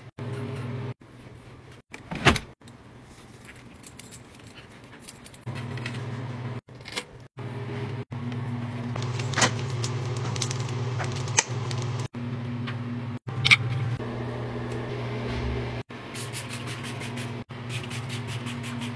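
Household items being handled during cleaning: scattered clicks and light clattering over a low steady hum. The sound breaks off abruptly about every second or so.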